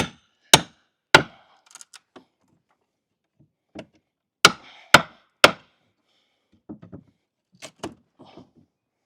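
Hammer blows on wooden deck boards, knocking them loose: three sharp strikes about half a second apart, a pause, three more strikes at the same pace, then a few lighter knocks near the end.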